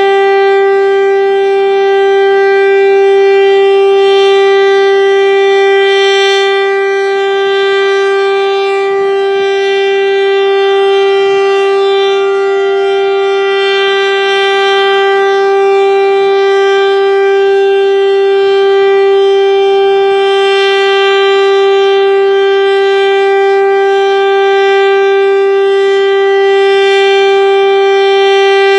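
Federal Signal STL-10 outdoor warning siren sounding a steady wail at a constant pitch, with mild swells in loudness.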